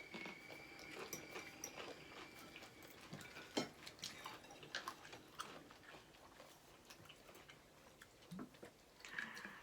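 Quiet mouth sounds of people eating fried chicken: chewing and biting with scattered short clicks. A faint thin high tone runs through the first couple of seconds.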